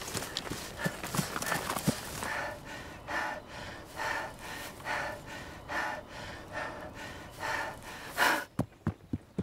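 A person breathing hard, one heavy gasping breath about every second, with a few sharp clicks and knocks in the first two seconds and again near the end.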